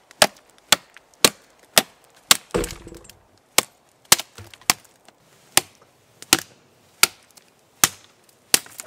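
Eickhorn KM2000 combat knife hacking into a fallen conifer trunk: sharp wooden chopping strikes, about two a second, with a brief pause about three seconds in.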